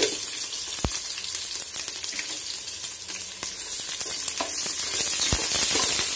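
Sliced onions and whole spices frying in hot oil in a metal pot: a steady sizzle, with a spoon stirring and knocking sharply against the pot a few times.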